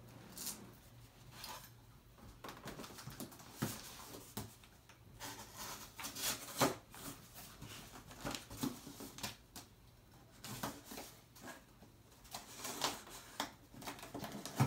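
A cardboard shipping box being handled and opened: an irregular string of cardboard rustles, scrapes and taps. Near the end the packing tape on its top is slit and pulled away.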